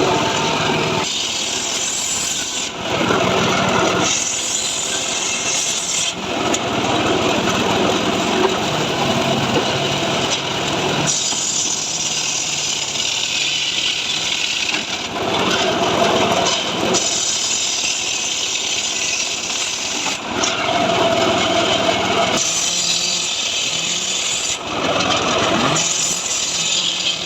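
Engine-driven saw running hard while cutting dry mahogany, its sound changing every few seconds as it bites into the wood and eases off.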